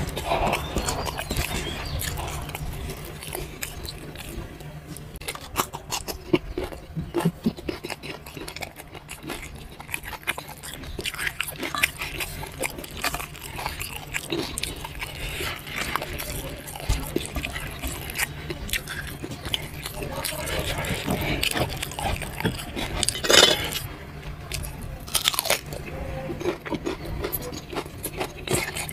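Close-up chewing and crunching of food eaten by hand, mostly crisp fried noodles, in many irregular crackly bites. Two louder crunches stand out about three-quarters of the way through.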